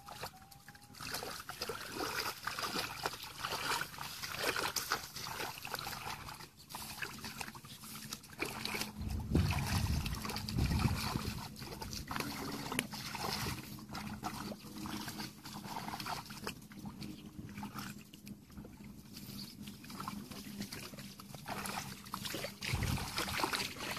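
Shallow muddy paddy water sloshing and splashing in many small irregular splashes as people wade barefoot through a flooded rice field and grope in the mud with their hands, with a few heavier splashes about ten seconds in.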